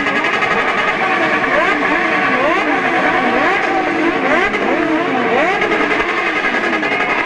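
Several motorcycle engines revved over and over at once, each rev a quick rise and fall in pitch, overlapping into a continuous loud din.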